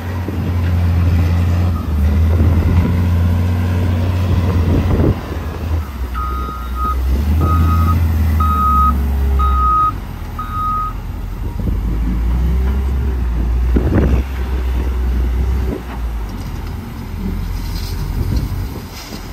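Heavy diesel engine running, its low note swelling and easing, with a reversing alarm beeping five times, about once a second, partway through. A single sharp knock stands out about two-thirds of the way in.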